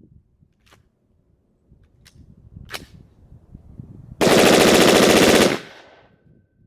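AR-15 pistol bump-fired: a very loud, rapid string of shots lasting just over a second, a little past the middle. A few faint clicks come before it.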